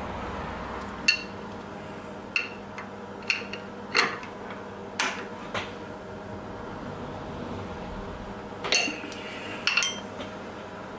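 Sharp metallic clinks and clicks of a steel wrench on a milling machine's spindle nut as a flycutter is tightened into the spindle: about eight short ringing clinks, two close together near the end, over a steady low hum.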